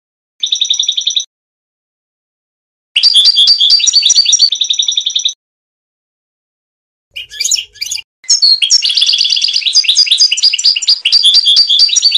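European goldfinch song: quick twittering trills and tinkling notes in separate phrases, with dead silence between them. A short phrase comes near the start and a longer one about three seconds in. A few scattered notes come around seven seconds, then a long unbroken run of song from about eight seconds on.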